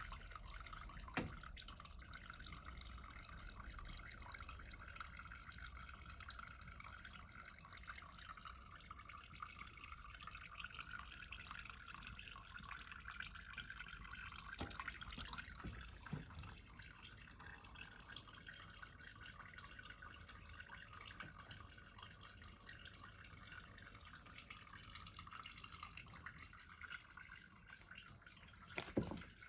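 Faint trickle of tap water running into a kitchen sink, with a light knock about a second in and another near the end.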